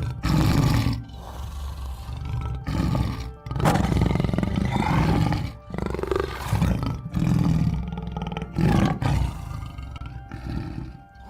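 Tiger roaring and growling several times in a row, each roar a rough, drawn-out rumble with short breaks between, over soft background music.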